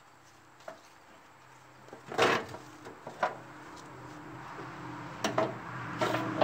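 Empty steel drums being moved and tipped up by hand, giving several sharp metal knocks and bumps, the loudest about two seconds in. A low steady hum grows underneath in the second half.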